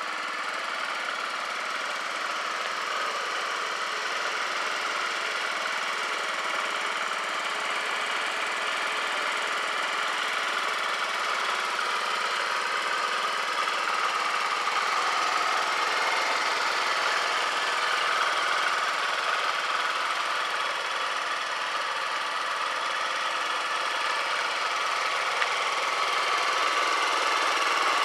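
Yamaha Vino 4-stroke 50cc scooter engine idling steadily, getting a little louder toward the end.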